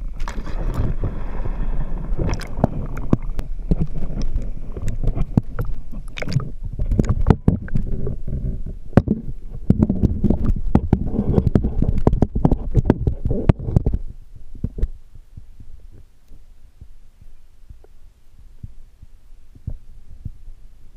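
Underwater sound through a waterproof camera housing: a muffled low rumble with dense clicking and knocking from water and handling against the housing. About two-thirds of the way through it drops to a quieter low hum with scattered clicks.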